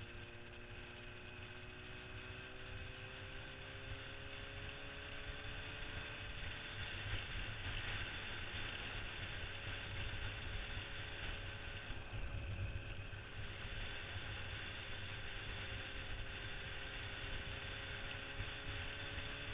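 1977 Yamaha RD400's two-stroke twin engine running under way, with heavy wind rush on the camera microphone. Its pitch rises slowly over the first several seconds, then holds steady.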